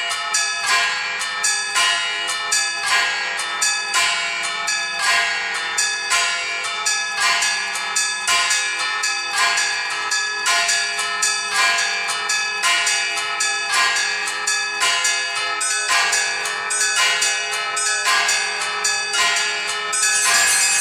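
Orthodox church bells played by an automatic electronic bell-ringing system in the traditional Easter peal. The bells are struck in a quick steady rhythm of about two to three strokes a second over the long ring of the bells. Brighter, higher ringing joins near the end.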